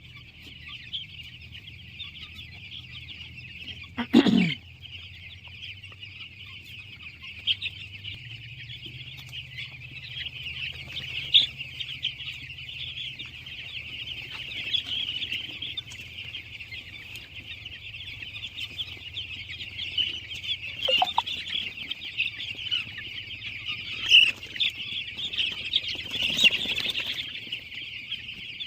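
A flock of chickens clucking and chirping without a break. A loud call falls sharply in pitch about four seconds in, over a steady low hum.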